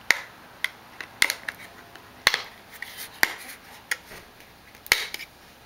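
About ten sharp plastic clicks and snaps at irregular spacing, from a Samsung Galaxy S3's plastic back cover being pried off with a fingernail.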